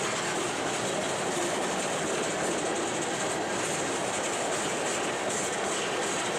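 Empty coal hopper cars of a freight train rolling past: a steady rumble and rattle of steel wheels on the rails, with the clickety-clack of wheels over rail joints.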